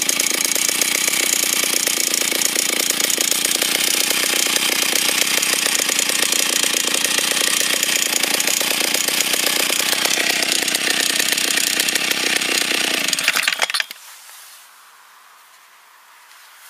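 Stihl 08 S single-cylinder two-stroke chainsaw engine running steadily with a rapid firing rhythm, then cutting out suddenly about thirteen and a half seconds in.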